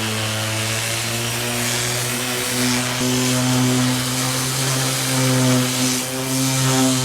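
Power tool running steadily: a hum with a hiss over it, its pitch wavering slightly, starting and stopping abruptly.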